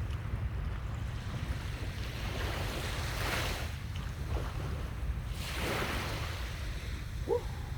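Sea waves washing onto a sandy beach, with two swells of surf about three and five and a half seconds in, under a steady low rumble of wind on the microphone. A short squeak sounds near the end.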